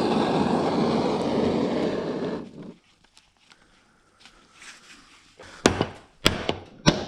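Blowtorch flame hissing steadily while it heats the aluminium crankcase to free the crankshaft and its bearing, shutting off suddenly about two and a half seconds in. Near the end come three sharp knocks about half a second apart, as the case is knocked to free the crankshaft.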